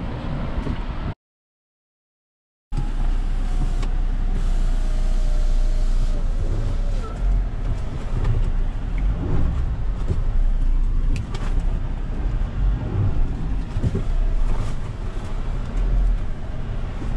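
Cabin noise of a 2020 Mahindra Thar driving over a rough dirt track: a steady low engine and road rumble with a few short knocks and rattles from the bumps. The sound cuts out completely for about a second and a half, about a second in.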